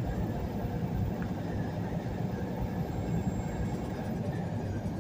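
Steady cab noise of a semi truck cruising at highway speed: a low rumble of the diesel engine and tyres on the road.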